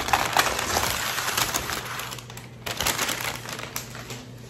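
Stiff butcher paper crinkling and rustling as it is pulled off a foil-wrapped brisket by hand, busiest in the first two seconds, with another burst of crackling about three seconds in.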